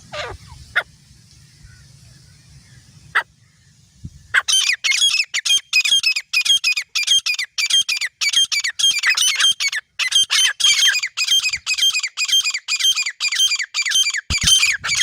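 Grey francolin calling: a few single shrill notes in the first four seconds, then from about four seconds in a fast, unbroken run of loud, shrill repeated notes, about four a second.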